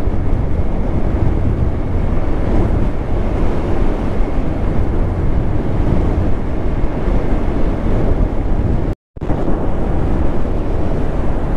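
Wind rushing over the microphone of a motorcycle riding at speed, over a steady low rumble of engine and road. The sound cuts out completely for a moment about nine seconds in.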